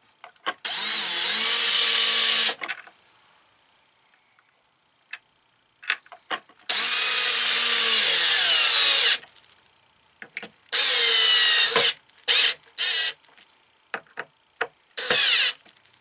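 Porter-Cable 20V cordless drill running in about six bursts while drilling and driving screws into a cabinet to fasten a gas-strut bracket. Two runs last about two seconds, the rest are short, and during the longest run the motor's pitch sinks as the bit takes load.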